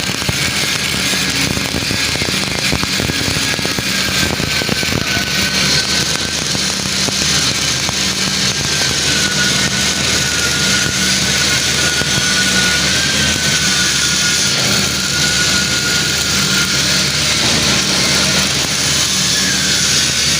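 MIG welding arc with solid wire, a continuous dense crackle that holds steady throughout, over a steady low hum.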